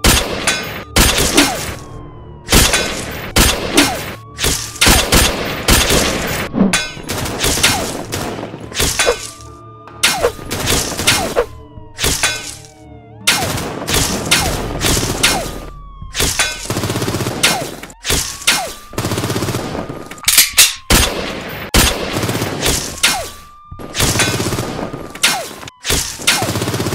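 Volleys of gunshot sound effects, several quick shots at a time, with a police siren wailing slowly up and down behind them.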